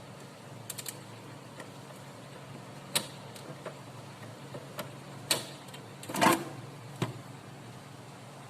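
A few scattered sharp clicks and knocks, the loudest about six seconds in, over a low steady hum.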